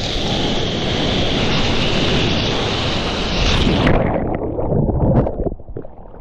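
Loud rush of breaking whitewater churning around a longboard as the surfer falls off, with wind on the microphone. About four seconds in the sound suddenly turns dull and muffled as the microphone goes under the water, leaving a low underwater rumble and a few thuds.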